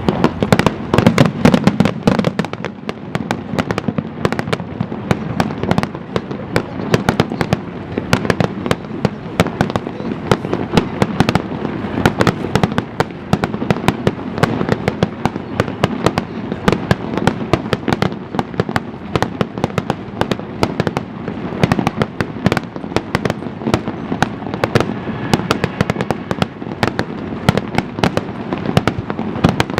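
Aerial fireworks bursting in a dense, continuous barrage: many sharp bangs a second over a steady low rumble.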